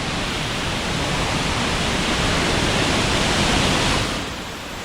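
Waterfall rushing: a steady, dense roar of falling water that eases a little near the end.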